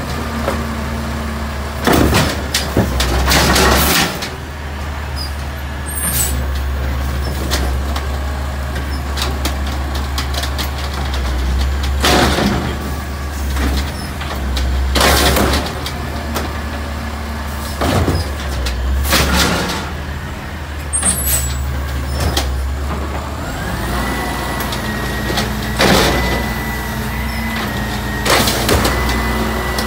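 Automated side-loader garbage truck at work: its diesel engine runs with a steady low rumble while the hydraulic arm lifts and tips blue recycling bins into the hopper. Loud bangs and clatters of bins and falling recyclables come every few seconds, and a steady high whine runs through the last several seconds.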